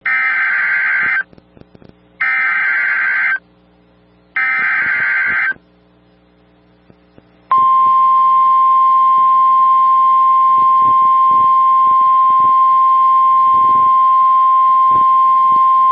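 Emergency Alert System SAME header: three short bursts of warbling digital data tones, each about a second long, encoding a tornado warning. About two seconds after the last burst, the steady single-pitch NOAA Weather Radio warning alarm tone comes on.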